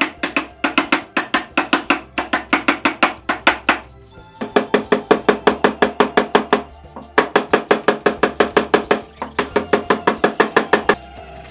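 Wooden mallet tapping wooden bowtie keys into their mortises in a solid-wood stool top: quick, light, ringing knocks, about five a second, in four runs with short pauses between.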